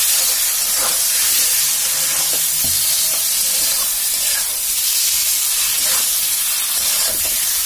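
Spiced masala sizzling in hot oil in a kadai as boiled potatoes are stirred through it with a metal spatula. A steady frying hiss runs throughout, with a few light scrapes and knocks of the spatula against the pan. The masala is fully fried down and the potatoes are being coated in it.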